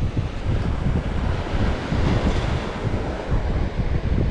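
Wind buffeting the microphone, with the steady wash of surf breaking on the beach behind it.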